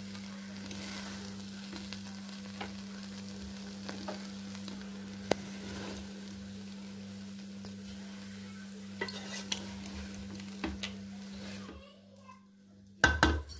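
Wooden spatula stirring and turning cooked biryani rice in a pot, with scattered small clicks of the spatula against the pot, over a steady low hum. The hum stops near the end, followed by a loud knock.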